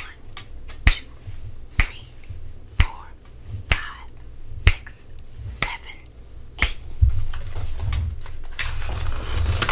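Finger snaps, eight in a row about a second apart, keeping time as the monkeys in the picture are counted.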